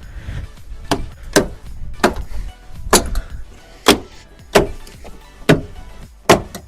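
Plastic retaining clips of a Nissan Hardbody's interior door panel popping loose one after another as the panel is pried off the door: about eight sharp snaps, roughly one every second or less.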